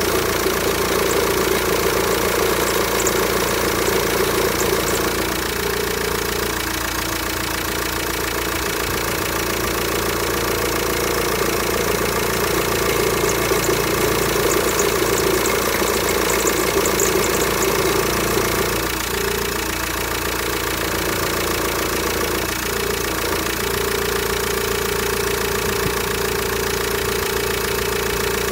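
Volkswagen Transporter T5 1.9 TDI four-cylinder diesel idling, with a steady whine from its failing power steering pump, whose internal mechanism is damaged. The whine briefly drops away a few times.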